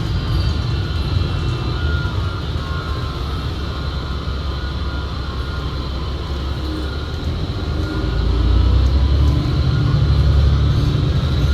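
Cabin sound of a 2019 New Flyer XD60 articulated diesel bus under way: a low engine and road rumble under a steady high whine that the rider puts down to the transmission and calls weird, loud enough to mask the engine. The rumble swells about eight seconds in.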